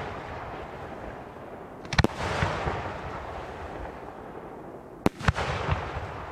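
Aerial fireworks bursting: a close pair of sharp bangs about two seconds in and another pair about five seconds in, each followed by a fading tail.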